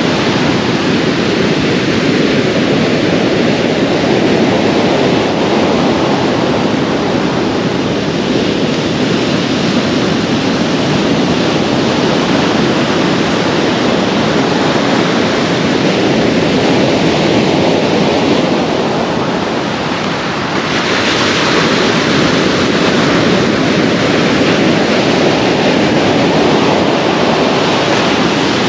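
North Sea surf breaking close in on the beach, a continuous rushing wash of waves. About 20 seconds in, a brief lull gives way to a louder, hissier wave surge.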